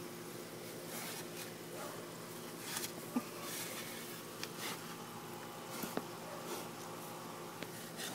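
Steady insect buzzing, with scattered faint scrapes and clicks as a shovel blade rubs against a pig's muddy hide and the ground.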